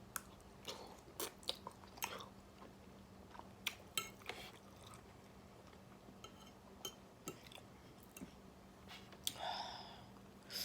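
A person chewing food close to the microphone, with soft, irregular mouth clicks.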